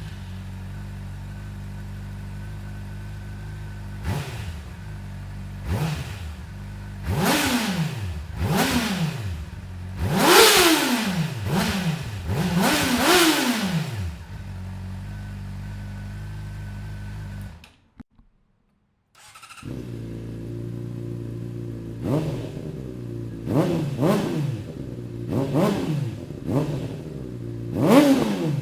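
2008 Honda CBR600RR inline-four sport bike engine idling, then revved in quick throttle blips about seven times, each rising and falling back to idle. After a short silent break it idles again with a different exhaust and is blipped about six more times.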